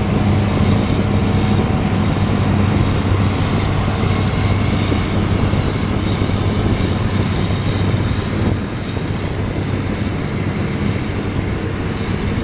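Motorboat engine running steadily with a low hum, under wind and water noise; slightly quieter from about eight and a half seconds in.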